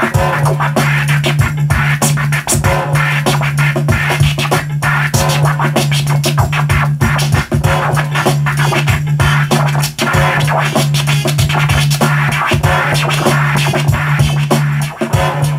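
Vinyl record scratching on turntables: rapid back-and-forth scratches chopped by the mixer's crossfader, over a steady low bass tone that drops out briefly now and then.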